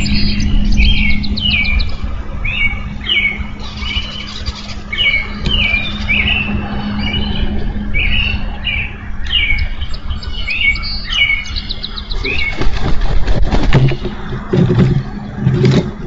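Songbirds singing: a steady series of short falling whistled notes with higher trills between them, over a constant low hum. Near the end come loud rustling and thumping in the nest sticks as a second bald eagle lands at the nest.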